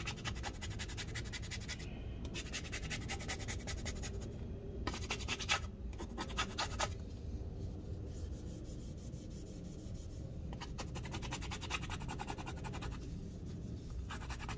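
Plastic scraper blade rasping old battery adhesive residue, softened with rubbing alcohol, off a MacBook Pro's aluminium top case in runs of quick back-and-forth strokes. Quieter stretches of rubbing come between the runs.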